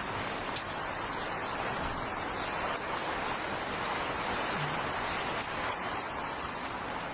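Steady rain falling on a tent's tarpaulin, heard from inside the tent.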